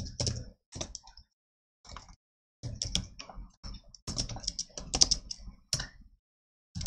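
Computer keyboard typing in short runs of keystrokes, with brief pauses between the runs.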